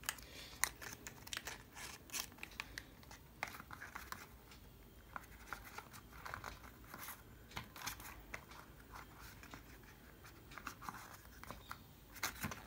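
Faint rustling, scraping and light clicks of a white cardboard earbuds box and its paper packaging being handled and opened by hand.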